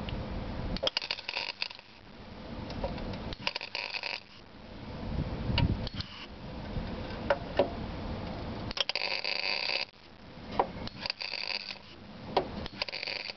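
Semi-automatic MIG welder with CO2 shielding gas laying short plug welds through drilled holes in thin car-body sheet steel: about five separate bursts of crackling arc, each half a second to a second long, with pauses between them.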